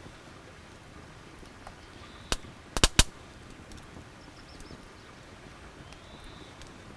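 Campfire coals with a faint hiss and a few sharp wood pops, one a little over two seconds in and three in quick succession about half a second later, as a wooden arrow shaft is fire-hardened over the embers.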